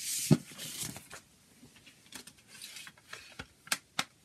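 A paper CD booklet slid across a tabletop and picked up by hand: a rustling scrape with a light knock in the first second, then softer handling noise and two sharp clicks near the end.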